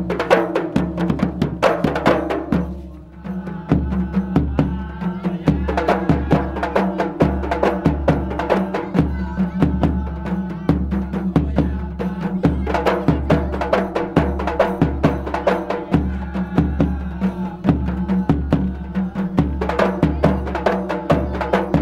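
A group of rebana frame drums beaten by hand in a fast, dense interlocking rhythm over a bass drum struck about once a second; the drumming briefly drops away about two and a half seconds in.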